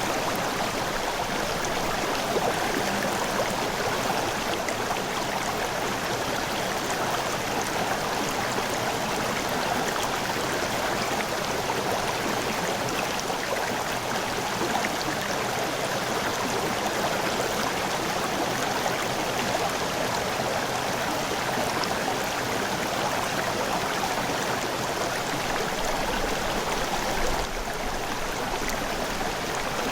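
River water flowing: a steady, even rush of running water that does not let up.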